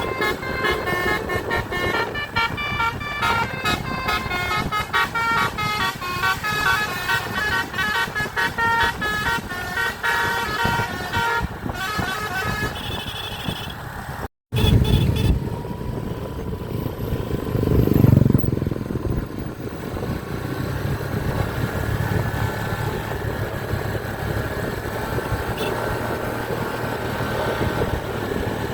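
A bus's Basuri telolet horn playing a quick tune of short, stepped notes. After a sudden cut about halfway, vehicle engine and traffic noise takes over and swells for a moment a few seconds later.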